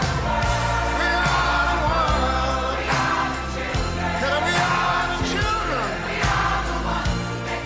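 Music: a song with singing voices over steady bass notes.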